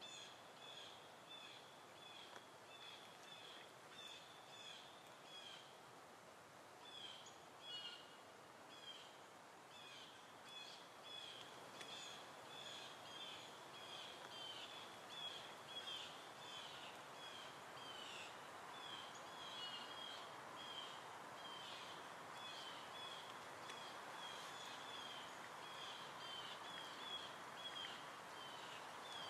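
Faint birdsong: short high chirps repeated about twice a second over a soft outdoor hiss.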